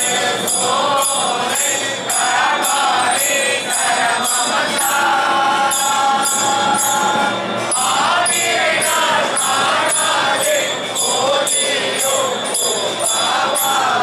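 A group of men and women singing a devotional hymn together, with a metallic jingle keeping an even beat about twice a second.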